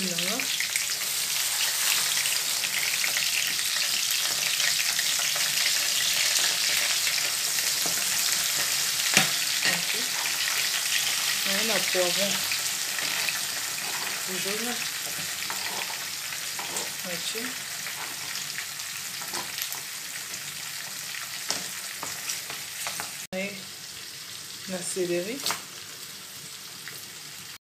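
Sliced onions and garlic frying in hot oil in a frying pan: a steady sizzle that slowly grows quieter through the second half as chopped greens and pepper go in. A few sharp clicks come through it.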